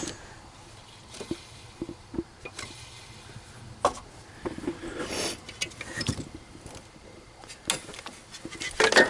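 Handling noise from work on a blower motor: scattered light clicks and knocks, with a brief scrape about five seconds in and a few more knocks near the end.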